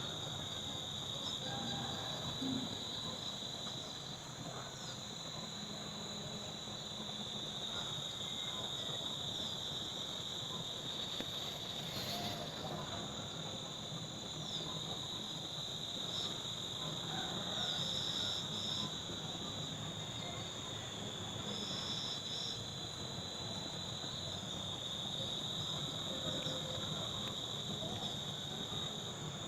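Steady, high-pitched chorus of insects such as crickets, a continuous unbroken trill, over a soft background hiss.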